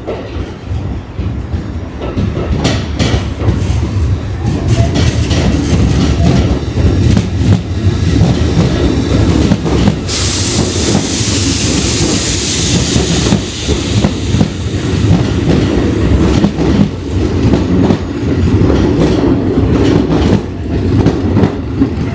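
Kintetsu 3200 series electric train running, its wheels clattering over rail joints with a rumble that grows over the first few seconds. A loud hiss of air sets in about ten seconds in and fades over a few seconds.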